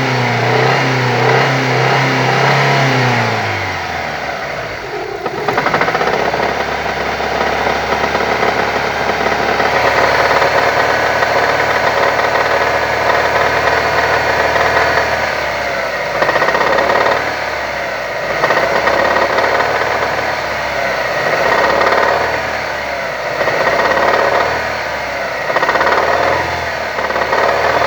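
Daewoo Nexia 1.6 16-valve four-cylinder petrol engine running with a knock whose cause the owner does not know. It is held at high revs that drop off about three seconds in, then it runs on and is revved in short blips every two to three seconds in the second half.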